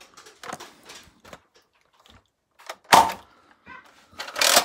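Scattered knocks and scuffs of an interior door and a handheld phone brushing against it. A sharp knock comes about three seconds in, and a louder harsh scrape comes near the end.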